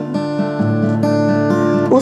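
Acoustic guitar accompaniment to a bard song, picked and strummed between sung lines; the singing voice comes back right at the end.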